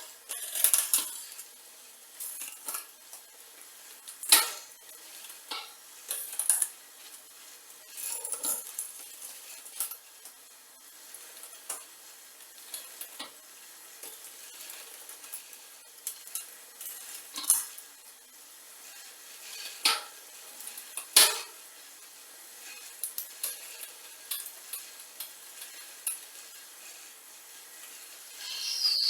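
Metal tools and bicycle parts clinking and clicking as they are handled, in irregular small taps with a sharper knock now and then.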